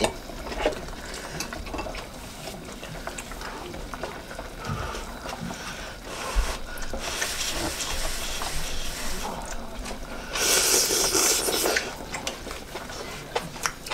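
Hot pot broth simmering with a steady hiss, under the sounds of hot food being eaten with chopsticks. The eating noise is loudest as a breathy rush at about ten to twelve seconds in.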